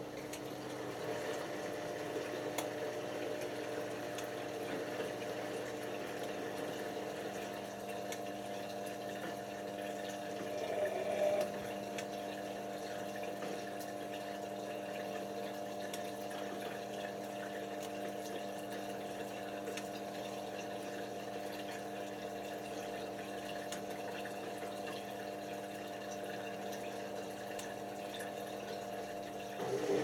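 Bosch WFM4030 front-loading washing machine draining ahead of its rinse inter-spin: the drain pump hums steadily with water running through it, with a brief louder surge about eleven seconds in.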